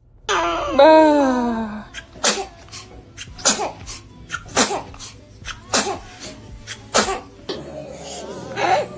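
A baby makes a short vocal sound that falls in pitch, then sneezes repeatedly: a string of short, sharp sneezes, the louder ones about a second apart with smaller ones in between.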